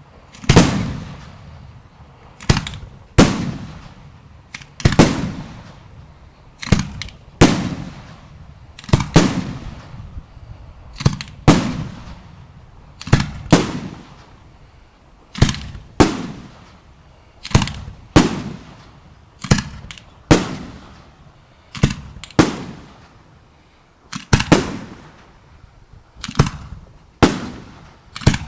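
Fireworks display: aerial shells bursting in a steady run of sharp bangs, roughly one a second, each trailing off in a rumbling echo.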